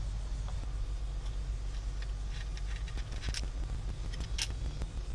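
Light, scattered clicks and taps of a metal mounting bracket and its wiring being handled, over a steady low rumble.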